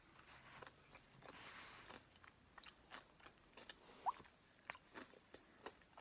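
Faint chewing of a mouthful of chili and crunchy corn chips, with scattered soft crunches and mouth clicks. A short rising squeak about four seconds in.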